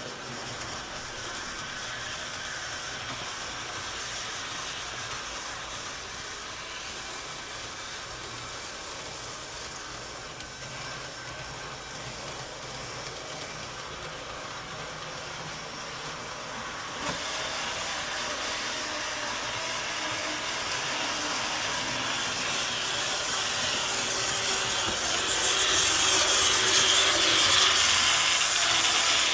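TurboTrain running with a steady hiss and a rasping, grinding noise, a sign of the fault in the rear power dome car's truck. It steps up in loudness about two-thirds of the way through and is loudest near the end.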